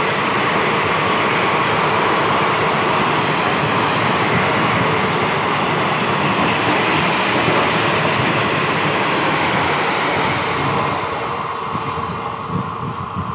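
Express train coaches running through at high speed: a steady loud rush of wheels on rail that fades from about ten seconds in as the last coach passes, with a few wheel knocks near the end.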